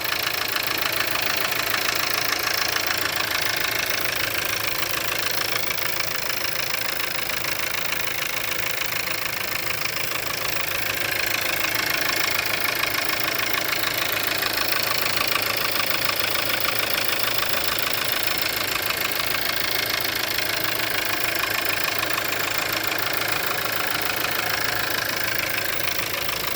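Škoda Octavia's 1.4 TSI (CZDA) four-cylinder petrol engine idling steadily with a fast, even knock, which the owner places at the first cylinder.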